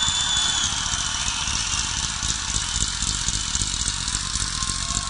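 Large crowd applauding and cheering, with a short piercing whistle at the start.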